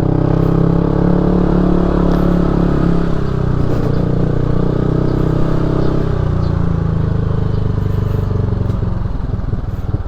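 Motorcycle engine running steadily while riding, its note shifting about three seconds in, with rattling near the end.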